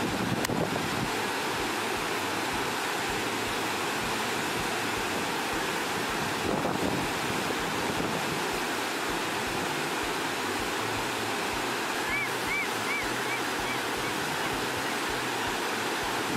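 Steady rushing of a fast-flowing river, with wind buffeting the microphone. About twelve seconds in comes a quick run of five high chirps.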